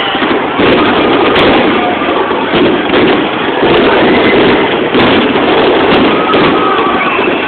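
Aerial firework shells bursting in rapid succession: a dense, unbroken barrage of loud bangs.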